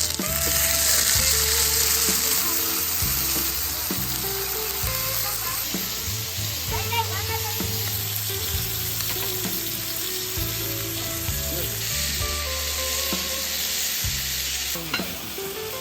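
Heavy rain falling in a steady hiss, with background music underneath.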